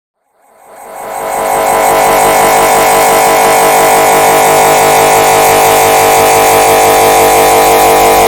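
Red bird laughing meme sound ('wewewe') stacked on itself countless times into one dense, loud, fluttering wall of sound with many held tones. It swells up from silence about half a second in and holds steady once it peaks.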